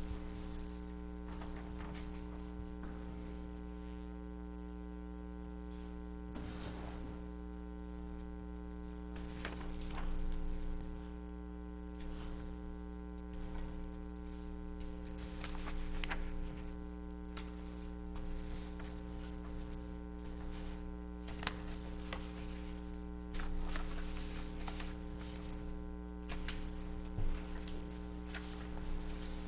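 Steady electrical mains hum throughout, with occasional brief rustles and soft knocks from papers being handled and signed at the table.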